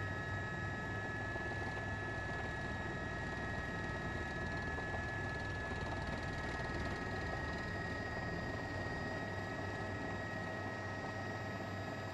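Steady background hiss and hum with several constant high whining tones, unchanging throughout. There are no event sounds, as the footage's own audio is muted.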